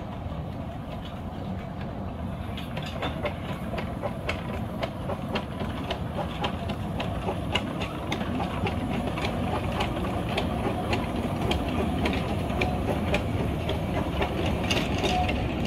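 Narrow-gauge steam train running past: a steady rumble with many sharp clicks of the carriage wheels over the rail joints, starting a few seconds in and growing louder as the carriages pass.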